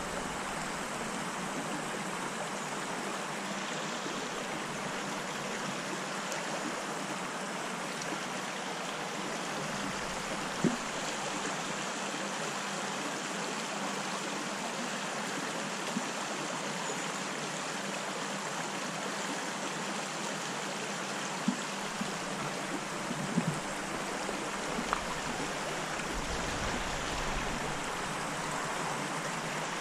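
Small, shallow stream running steadily over a stony bed, an even rushing of water.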